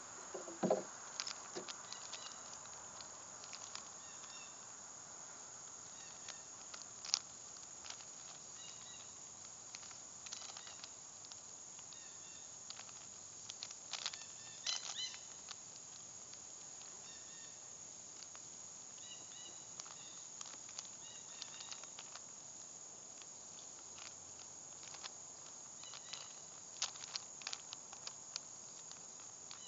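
Rubik's Cube being turned by hand in a speed solve: faint, irregular clicks and rattles of the plastic layers, with a few louder snaps.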